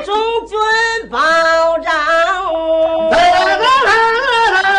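A man and a woman singing in a drawn-out Peking opera style, with long held notes that waver in pitch.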